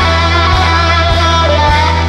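Background music: a guitar-led rock track over a sustained bass note and a steady beat of about one and a half strokes a second.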